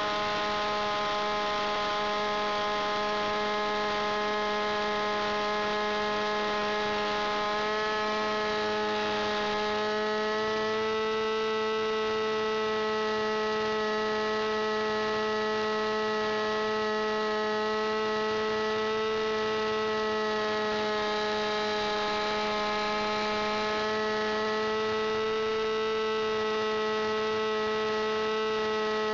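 Engine of an RC aerobatic model plane running steadily at high revs, heard from a camera mounted in its cockpit. The engine note is constant, lifting slightly in pitch about ten seconds in and again near the end.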